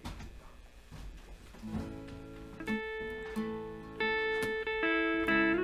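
Guitar picking single notes that ring on into one another, the opening of a song's intro. The notes start about a second and a half in, after a moment of low room sound, and grow louder near the end.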